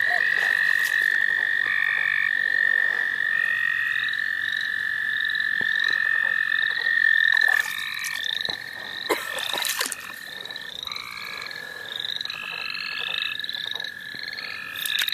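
Spring frog and toad chorus at a breeding wetland. One long, steady, even trill runs through it, of the kind American toads make, and shorter repeated trills and short rising calls of other frogs overlap it. A few knocks and rustles of hands moving through wet grass and water come about halfway through.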